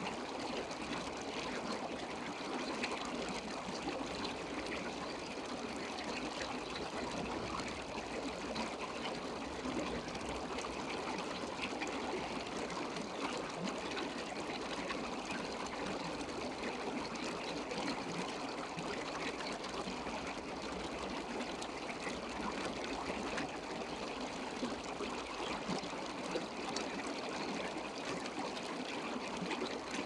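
Steady trickling, flowing water with a fine, fizzy texture, unchanging throughout.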